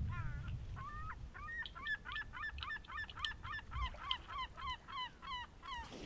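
A bird calling over and over: a long, even run of short downward-slurred notes, about three a second.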